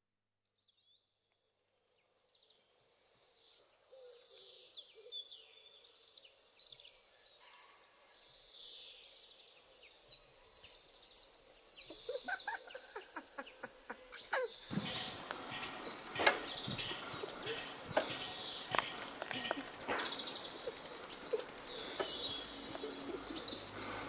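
Wild birds singing and chirping, many short high trills overlapping, fading in from silence and growing louder. About halfway through, a louder outdoor rushing noise with scattered clicks and knocks comes in under the birdsong.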